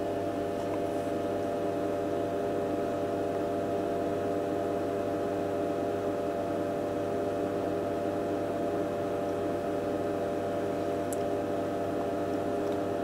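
Steady electrical mains hum with a faint buzz from powered-up bench test equipment, unchanging throughout.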